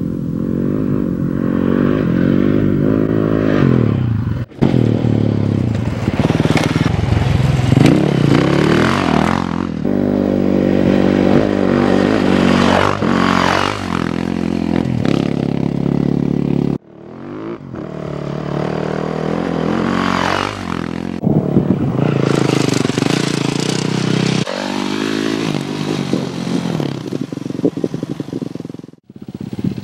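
Dirt bike engine revving up and down as it is ridden over dirt trails, its pitch rising and falling with the throttle. The engine sound breaks off abruptly a few times.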